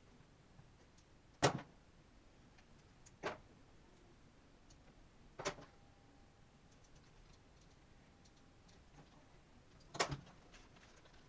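Four sharp clicks or knocks from a laptop being handled, irregularly spaced, the first the loudest. A faint steady tone follows the third knock for a couple of seconds.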